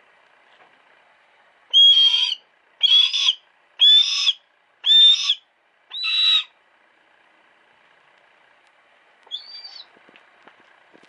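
A female hawk calling: five loud, pitched calls about a second apart, then one fainter short call near the end.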